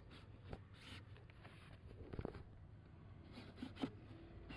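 Faint rubbing and a few light clicks and knocks as a pleated cabin air filter is handled and slid into its housing by hand, over a low steady hum.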